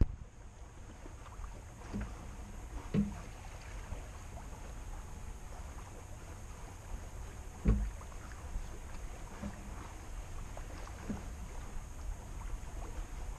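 Sailboat moving under sail: a quiet, steady low rumble of water along the hull, with a few short knocks, the loudest about three and eight seconds in.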